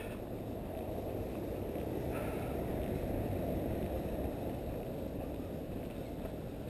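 Steady low rumble of wind buffeting a moving camera's microphone, swelling a little about three seconds in.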